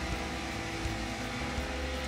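Wood-Mizer MR200 gang saw and its infeed roller conveyor running steadily as a cant is fed in: an even machinery drone with a few steady humming tones.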